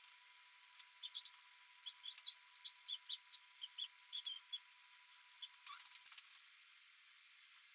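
A run of short, high squeaks, a dozen or so in about four seconds, with a faint steady high tone underneath that stops about six seconds in.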